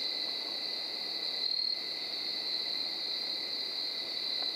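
Crickets trilling in a steady, continuous night chorus, high-pitched and unbroken.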